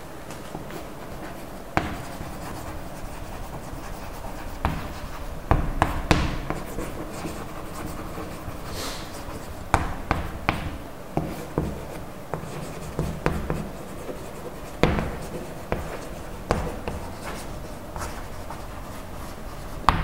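Chalk writing on a chalkboard: irregular sharp taps and short scratchy strokes as words are written out.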